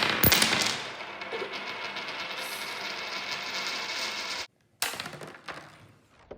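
Crunchlabs coin spinner launching a coin: a sharp snap as the spring-loaded gear strikes the coin, then the spinning coin gives a fast stream of ticks that slowly fades. The sound breaks off about four and a half seconds in, and a second launch snaps and dies away.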